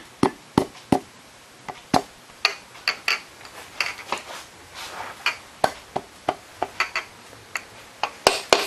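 Quick taps of a hammer handle on a piston crown, driving the piston down the bore of a Pontiac MR-1 engine block, about three a second at first. After that come sparser clicks and metal clinks.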